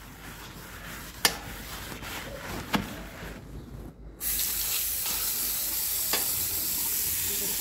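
Plastic carry bag scrubbing a washbasin, with a couple of light knocks. About four seconds in, a tap starts running, and water splashes steadily into the basin while the scrubbing goes on.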